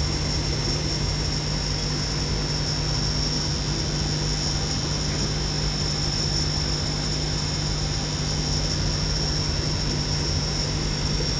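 Steady mechanical hum under an even hiss, with a constant low tone and a high steady whine, unchanging throughout.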